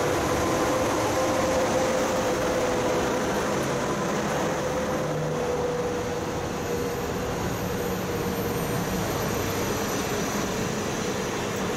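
Passenger coaches of a departing intercity train rolling past behind an EP09 electric locomotive: a steady rumble and hiss of wheels on rail, with a steady mid-pitched tone running through it.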